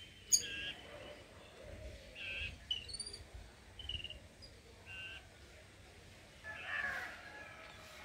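Faint, short bird calls from a juvenile Jacobin cuckoo and the babblers feeding it, about one brief call a second, one of them rising in pitch midway and a short run of calls near the end. The young cuckoo is begging food from its babbler foster birds.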